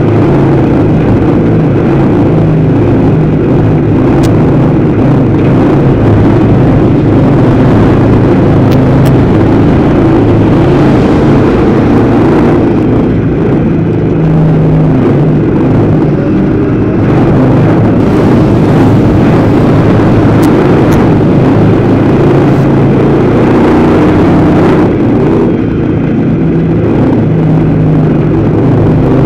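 Dirt-track race car engine running hard under racing load, heard onboard and very loud. Its note rises and falls as the throttle is lifted and reapplied through the turns.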